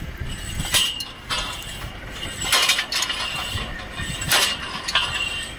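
Borewell drilling rig at work: a steady machine hiss and hum with a handful of sharp metallic clanks at irregular intervals.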